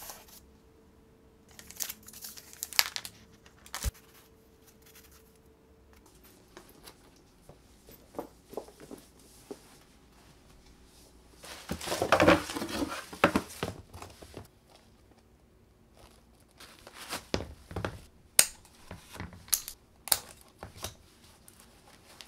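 Unboxing sounds: cardboard packaging handled with scattered taps and clicks, and a loud stretch of paper crinkling about twelve seconds in as sneakers are lifted from a paper-stuffed shoebox.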